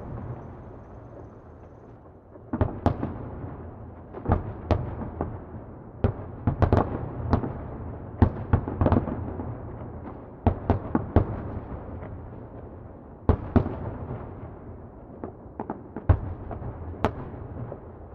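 Distant fireworks exploding: irregular volleys of sharp bangs, each trailing off in a rolling echo, over a steady low rumble.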